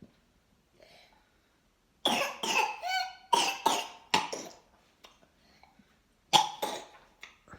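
A child's whooping cough (pertussis) coughing fit. A rapid string of coughs begins about two seconds in, with pitched, gasping in-breaths between them, followed by another short bout of coughs near the end.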